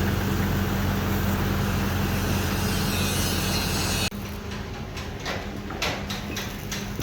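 A large engine runs steadily at a constant speed, then cuts off abruptly about four seconds in. After that come scattered light knocks and ticks.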